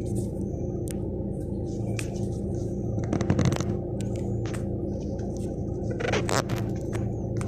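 Fingers rubbing and tapping on a handheld phone right at its microphone, giving scratchy clicks and scrapes, louder about three seconds in and again about six seconds in, over a steady low hum in a car cabin.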